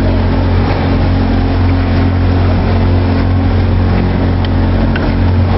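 Motorboat engine running at a steady speed, a constant low hum under a continuous rush of water and wind noise.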